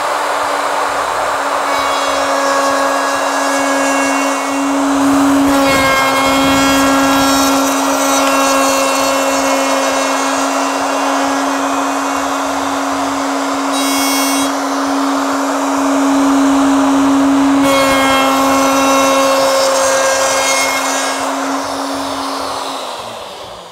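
Ryobi 2 HP plunge router running at speed as its bit cuts a long fin-box slot into a polyurethane foam surfboard blank. It makes a steady high motor tone and cutting noise, with extra whining tones coming and going as the bit bites. The router is switched off and winds down near the end.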